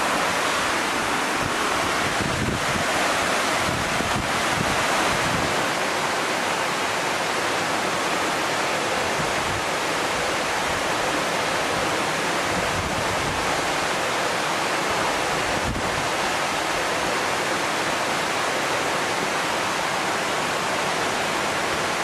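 A tall waterfall's steady rush of falling water: a dense, even hiss with a low, uneven rumble underneath.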